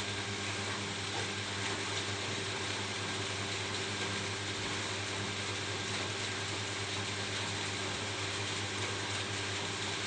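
Steady rain falling on a roof, an even hiss with no pauses, over a faint low steady hum.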